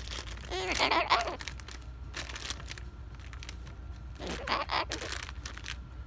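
Cockatoo giving two short, wavering vocal sounds, one about half a second in and one around four seconds, with light crinkling and clicking between them.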